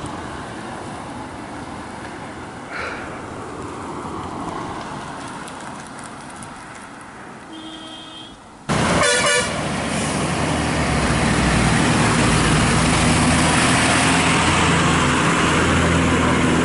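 Moderate open-road background noise with a faint short horn near the middle; then, about nine seconds in, the sound jumps to a loud vehicle horn blast followed by a bus engine running steadily close by as the bus passes.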